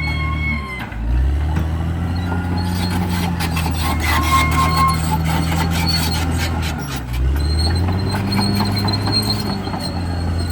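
CAT D6R XL bulldozer's diesel engine running under load, its note sagging and then picking back up about a second in and again about seven seconds in, with a steady clatter and a high whine over it.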